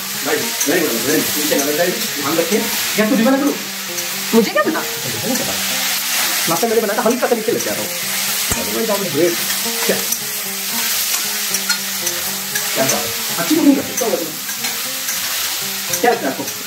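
Diced bell peppers, onions and peanuts sizzling in hot oil in a stainless steel kadai, with a steady hiss. A steel spatula stirs and scrapes them against the pan throughout.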